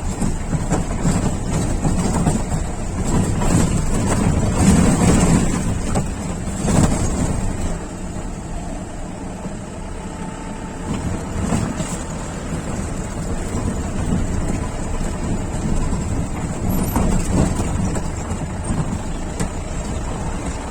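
Jeep driving a rough off-road track: the engine runs under load, with knocks and rattles from the bumpy ground. It is loudest about five and seven seconds in.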